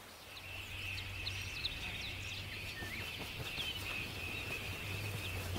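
Marsh wildlife ambience: a steady high-pitched chorus sets in about half a second in, with scattered short bird chirps above it and a low hum underneath.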